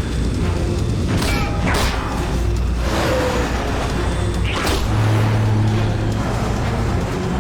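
Dramatic cartoon action score with sustained low bass notes. Whooshing sound effects sweep past a little over a second in, again just under two seconds in, and once more near five seconds in.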